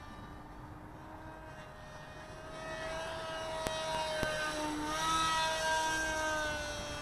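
Propeller whine of a foam flying-wing model plane making a low, close pass. It grows louder, peaks, and then drops in pitch as the plane banks away. Two sharp clicks come about midway.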